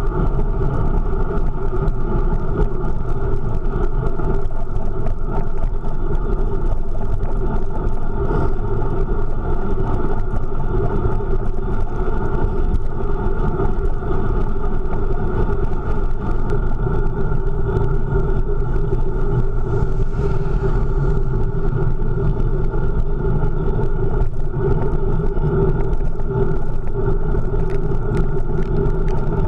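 Steady, muffled wind rush and road rumble on a GoPro mounted on a fixed-gear bicycle's handlebars while riding.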